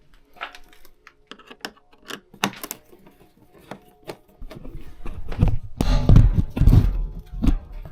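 Irregular sharp clicks and taps of hard objects being handled, with a cluster of heavier thumps and knocks in the second half.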